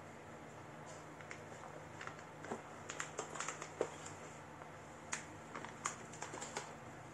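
Hands handling the motherboard's box and packaging: a scattering of light clicks, taps and rustles, in two busy runs about two and five seconds in, over a faint steady hum.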